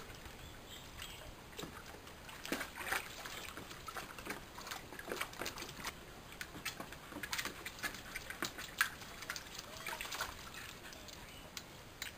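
Water sloshing and splashing in a shallow plastic paddling pool as a Staffordshire bull terrier stands in it and pushes a boomerball through the water, with irregular small splashes and knocks.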